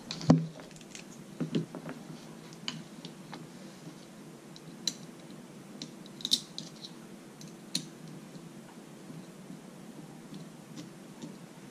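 Light clicks and taps of small plastic intercom parts and thin cables being handled on a desk, with a louder knock just after the start. A faint steady hum lies underneath.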